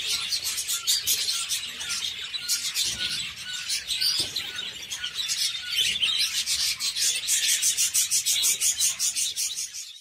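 A flock of budgerigars chattering: a dense, unbroken stream of rapid chirps and warbles from many birds at once.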